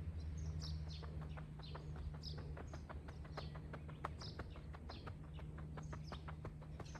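Birds chirping: a busy run of short sharp notes mixed with repeated high calls that fall in pitch, over a low steady hum.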